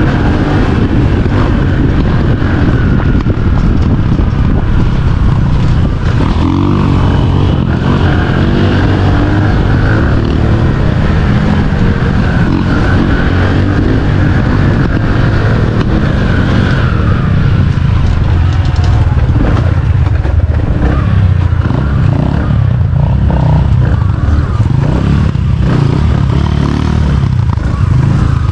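Tauro CRX 250 cc dirt bike's engine running under way, its revs rising and falling as it rides.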